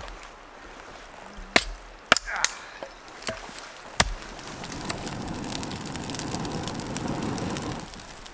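A hatchet splitting a dry piece of wood into kindling: about five sharp cracks over the first four seconds. Then a steady crackling hiss of a campfire catching for about three seconds.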